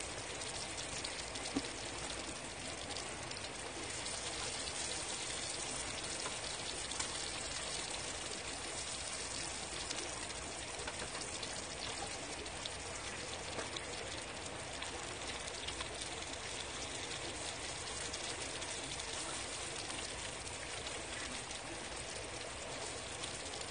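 Steady rain falling: an even, continuous hiss with a few faint drips.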